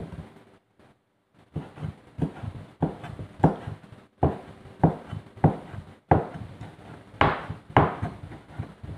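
Cleaver chopping boiled pork ear and face meat on a plastic cutting board, mincing it small for sisig: a steady run of knocks, a little under two a second. It starts about a second and a half in, after a brief silent break.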